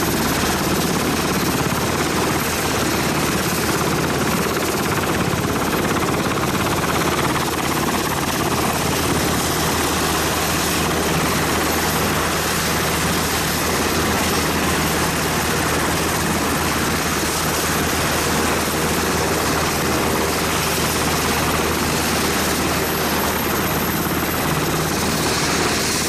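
Sikorsky Seahawk helicopter running on the ground with its rotors turning: a loud, steady mix of rotor beat and twin turboshaft engine noise.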